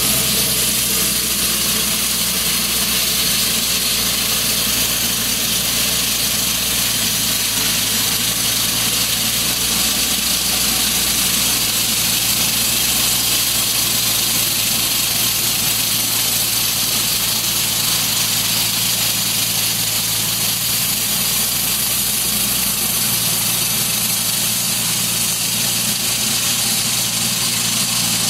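Walk-behind concrete slab saw running steadily on wet pavement: a constant low engine drone under a loud, even hiss.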